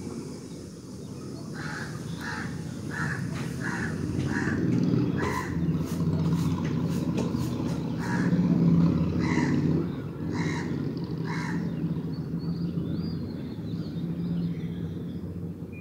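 Crows cawing: a quick run of about seven caws, then four more spaced out, over a steady low rumble.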